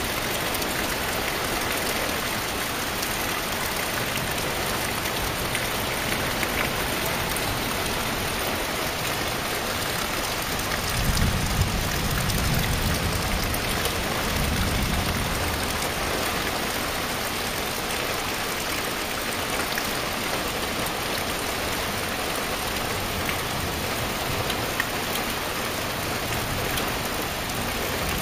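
Heavy rain falling steadily on trees and foliage, an even hiss of rain. A low rumble swells and fades for a few seconds about halfway through.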